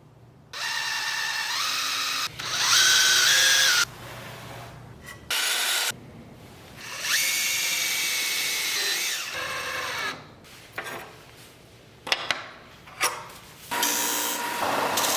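A power drill driving screws into wooden boards in several short bursts, its motor whining up to speed at the start of each one. A few sharp clicks come between bursts near the end.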